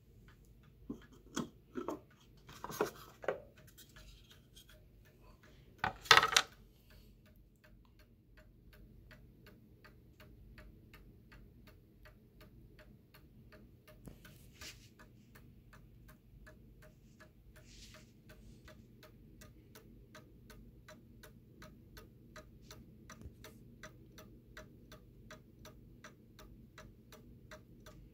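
Seth Thomas Adamantine mantel clock's movement ticking steadily, its replacement movement running. A few handling knocks come in the first few seconds, with a louder clatter about six seconds in.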